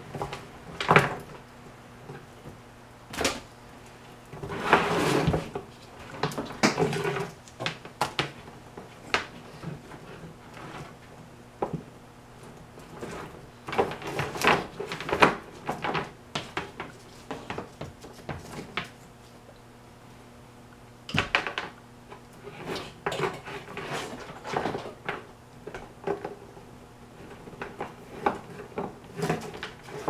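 Loose wiring harness being handled on a wooden workbench: wires rustling and plastic connectors clicking and knocking against the bench in irregular bumps as the bundle is lifted and sorted. A faint steady hum runs underneath.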